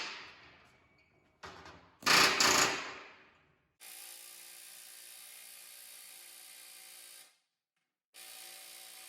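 Pneumatic air hammer firing a short loud burst against a seized steel door-hinge pin about two seconds in, the clatter dying away over about a second. After it, a much quieter steady hum starts, stops abruptly, and starts again near the end.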